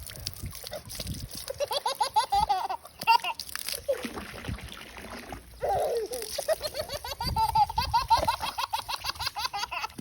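Someone laughing in quick, repeated high-pitched runs, with water splashing.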